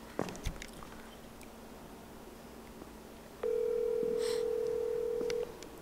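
Ringback tone of an outgoing smartphone call on speaker: one steady two-second ring starting about three and a half seconds in, the call ringing and not yet answered. A few light clicks near the start.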